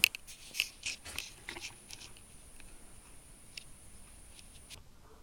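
A few light clicks and taps in the first second and a half, then fainter scattered ticks over a faint steady high whine.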